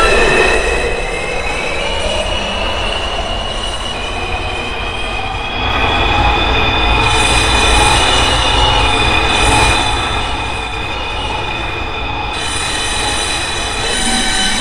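New York City subway train running, heard from inside the car: a low rumble with several high squealing tones that rise in pitch over the first couple of seconds, then hold steady.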